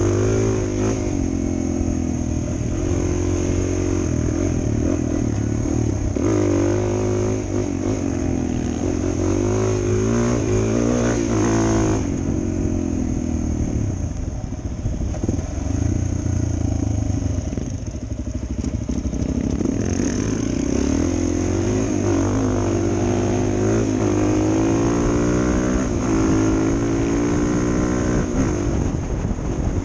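Suzuki DR-Z400 single-cylinder dual-sport motorcycle engine running while riding. Its pitch rises and falls again and again as the throttle is opened and closed, with two quieter spells off the throttle about midway.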